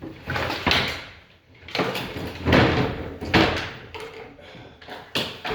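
Handling knocks and scrapes of wooden sewing-machine tables and cabinets being moved and opened, several bumps in a row with a sharper knock near the end.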